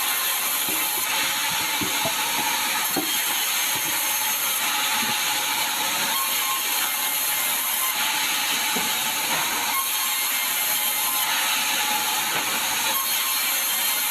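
Sawmill saw running steadily, a loud even hiss-like noise, with a few light knocks in the first few seconds.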